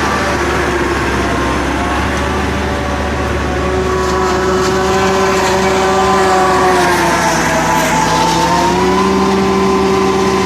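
Engine of silage-making farm machinery running steadily. Its pitch sags a little past halfway through, then picks back up.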